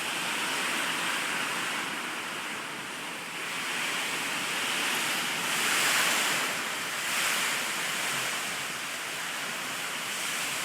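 Heavy hurricane rain and gusting wind, a steady rushing hiss that swells louder twice around the middle as gusts come through.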